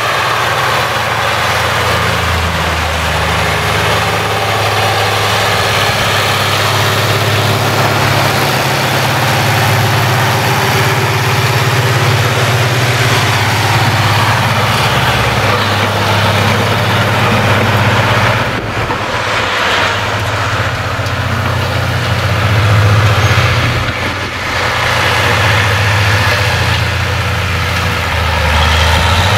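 Zetor tractor's diesel engine running steadily under load while pulling a plough through stubble. The deep engine note swells briefly about three-quarters of the way through.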